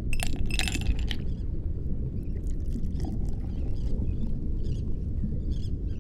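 Glasses clinking together several times in the first second, then a few faint scattered clinks, over a steady deep low rumble.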